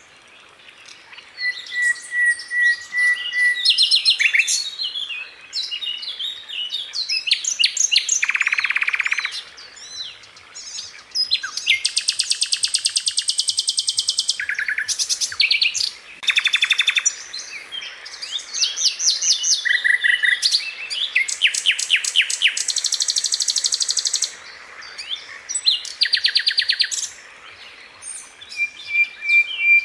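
Sikatan londo flycatcher singing a varied song of rapid rolling trills, fast runs of repeated sharp notes and brief held whistles, with short pauses between phrases.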